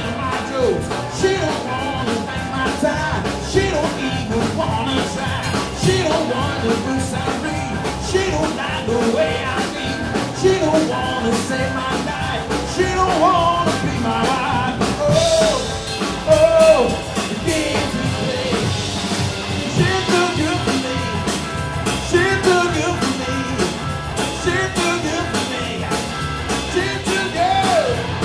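Live rock band playing loudly: electric guitar, electric bass and drum kit, with a lead line whose notes bend up and down.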